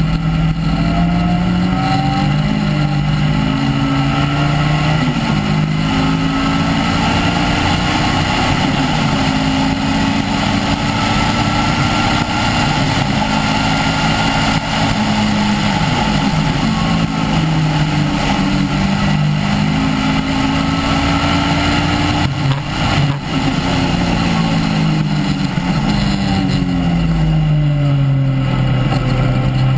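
Caterham R300 engine with an un-silenced exhaust, heard from the open cockpit, revving hard under acceleration. Its pitch climbs and drops back at each gear change, with a brief lift about three-quarters through, then falls as it shifts down near the end.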